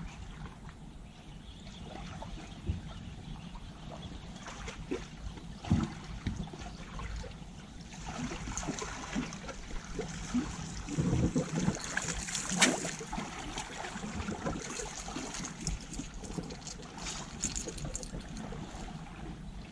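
Seawater lapping and trickling against rocks, with louder splashing and a few sharp knocks for several seconds about halfway through.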